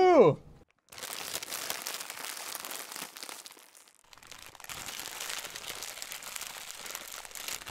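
The end of a child's shout, then two stretches of dense crinkling, crackling noise with a brief dip between them: the intro sound effect under the show's title card.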